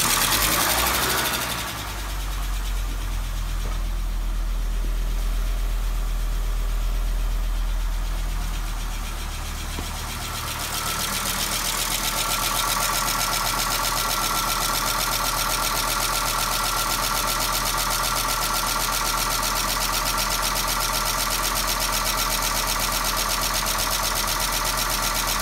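Audi 100 C4's 2.3-litre AAR inline-five petrol engine idling steadily. About ten seconds in, the sound turns brighter, with a fast, even ticking over the idle.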